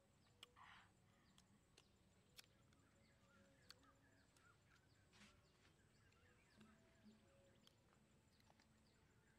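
Near silence with faint close sounds of peeling and eating small fruit by hand: scattered soft clicks and a couple of brief rustles.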